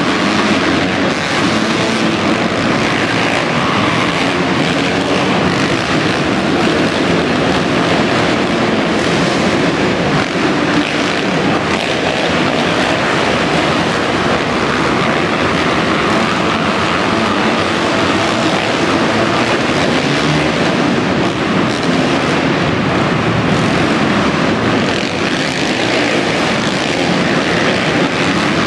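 A pack of motocross dirt bikes racing together around an arenacross track, their engines running hard in a continuous dense buzz.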